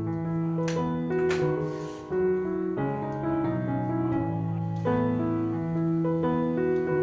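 Background piano music with slow held chords. A few short clicks or knocks sound over it in the first two seconds.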